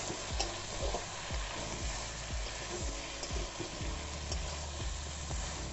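Pieces of catfish and potato in spiced masala sizzling in oil in a wok while a steel spatula stirs them, with frequent scrapes and knocks of the spatula against the pan over a steady sizzle.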